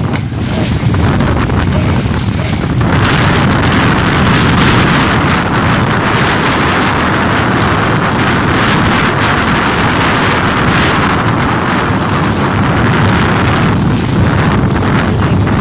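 Strong wind buffeting the microphone, with small waves washing against a rocky shore.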